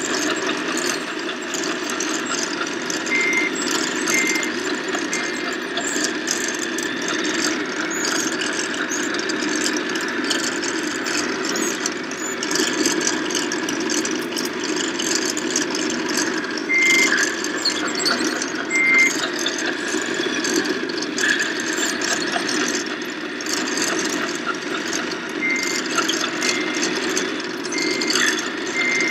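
Simulated diesel engine sound running steadily from radio-controlled scale construction models, a Liebherr tracked loader and a Mercedes tipper truck. A reversing beeper sounds in runs of short beeps a little under a second apart, a few seconds in and again near the end.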